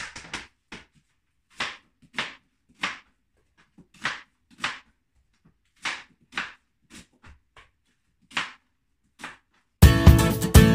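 Kitchen knife slicing through an onion onto a plastic cutting board: short crisp cuts, irregular, one or two a second. Acoustic guitar music comes in near the end.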